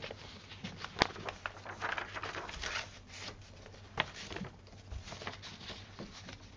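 Faint rustling and handling noise near the microphone, with two sharp clicks, about a second in and about four seconds in, over a low steady hum.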